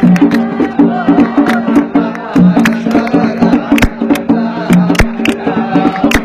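Instrumental passage of traditional dan music: a sustained melody over a steady pattern of sharp, fast drum strikes.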